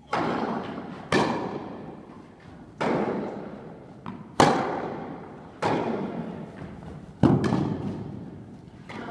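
Tennis rally: a tennis ball struck by rackets and bouncing on the court, six sharp pops about one to one and a half seconds apart, each with a long echo from the large indoor tennis hall.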